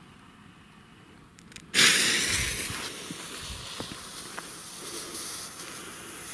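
A lit Weco Flashbang firework breaks into a sudden loud hiss about two seconds in as it catches and sprays sparks. The hiss slowly fades while it keeps burning, with a few faint ticks.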